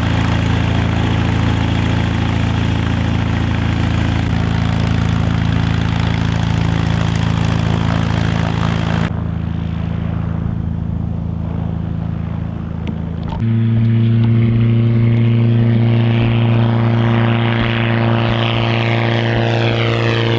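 Grob G109B motor glider's propeller engine running steadily at high power on its takeoff run and climb-out. The sound changes abruptly twice and is loudest for the last third. It ends with a sweeping, shifting sound as the aircraft passes overhead.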